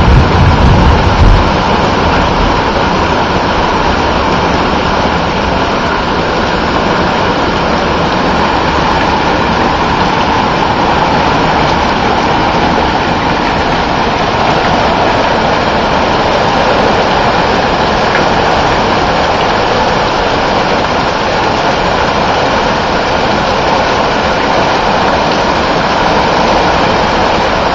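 Heavy summer downpour: a steady, dense hiss of rain falling hard, with a brief low rumble in the first second or so.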